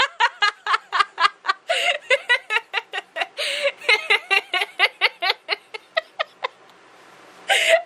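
A person laughing hard in a long run of short, high-pitched bursts, several a second, that dies away about six and a half seconds in.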